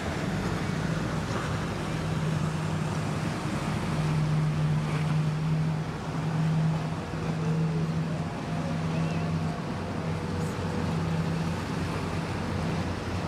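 Boat engine running with a steady low drone, mixed with wind noise on the microphone and water.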